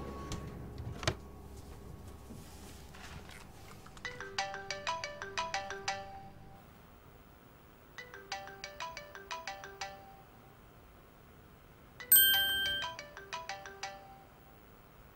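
A drawer knocks shut about a second in. Then a phone's melodic ringtone plays: a quick run of notes, repeated after a short pause, and near the end a louder bright chime followed by more notes.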